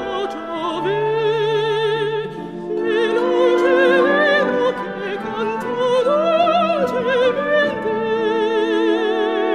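Operatic singing with a wide vibrato over sustained orchestral accompaniment.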